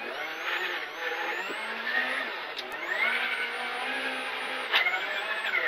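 Rally car engine heard from inside the cabin, pulling hard with the revs rising and falling. About two and a half seconds in the revs drop and climb again, and near the end there is a sharp knock.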